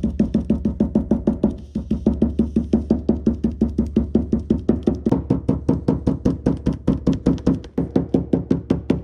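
Small metal hammer tapping rapidly and steadily, about six taps a second, on the foam moisture barrier of a car door to press it back onto its glue, over background music.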